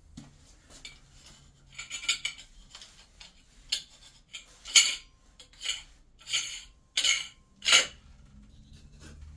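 Short metallic clinks and scrapes as chrome cover flanges are pushed and twisted onto the water-pipe outlets of a shower wall: a cluster about two seconds in, then five louder ones in quick succession over the next three seconds.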